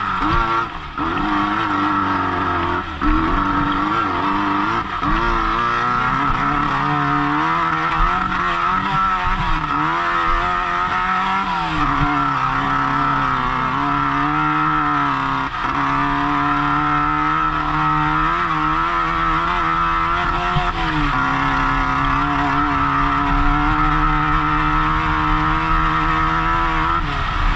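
Off-road race car's engine running hard, its pitch rising and falling repeatedly with throttle changes and shifts, over a steady rushing noise.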